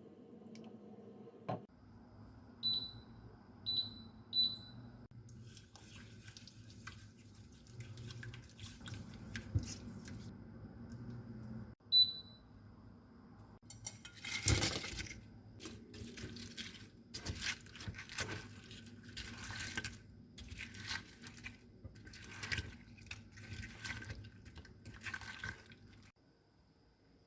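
Kitchen sounds: short electronic appliance beeps, three in quick succession and one more a few seconds later, over a low steady hum. After that come a clatter and a run of water and dish-handling noises.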